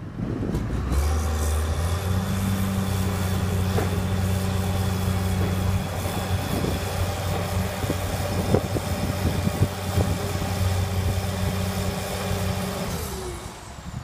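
Heavy construction-machine diesel engine revving up about a second in and held at steady high revs under load while the stuck bulldozer is lifted out of the mud, then dropping back near the end with a falling whine. A few light knocks sound over it.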